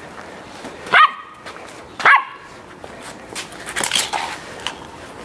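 Samoyed puppy giving two short high barks about a second apart, followed by a run of light clicks and knocks as it noses a plastic cup about on paving tiles.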